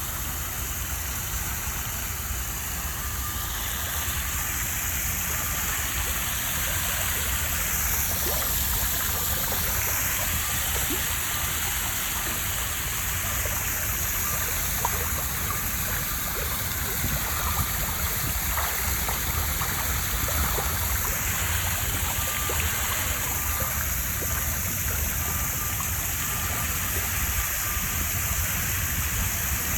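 Steady rushing of running water, even throughout, with a low rumble underneath.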